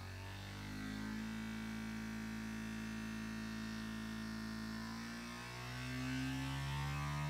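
Loudspeaker playing a low test tone in the 10 to 50 Hz range, heard as a buzzy hum with overtones. The pitch shifts and it grows a little louder about five seconds in.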